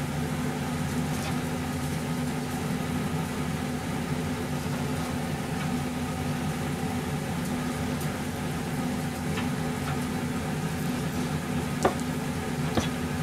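Steady hum of a running kitchen appliance, with a deba kitchen knife cutting raw meat on a plastic cutting board underneath it and a couple of sharp knife taps on the board near the end.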